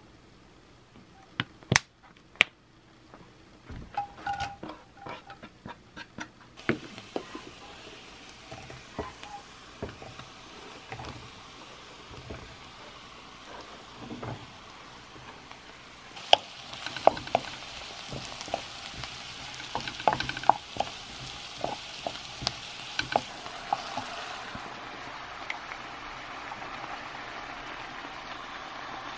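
Sliced mushrooms frying in oil in a non-stick pan, sizzling steadily and stirred with a wooden spatula, with short knocks of the utensil against the pan. A few sharp clicks come early. The sizzle starts faintly and grows clearly louder about halfway through, once the mushrooms are in the hot pan.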